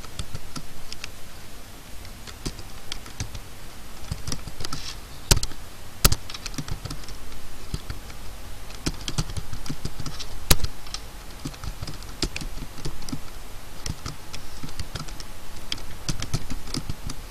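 Typing on a computer keyboard: quick bursts of key clicks with short pauses between them, and a few louder single key strokes about five, six and ten and a half seconds in.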